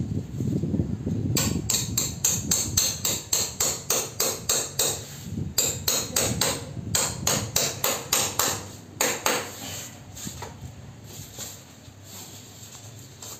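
Hammer striking the nail of a metal pipe clamp that fixes the air conditioner's pipe run to the wall: quick, even blows, about three or four a second, with two short breaks, then a few last taps near the end. A low rumble comes before the first blow.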